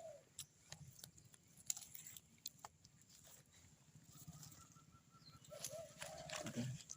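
Faint dove cooing near the end, a short wavering call, among scattered light clicks and ticks.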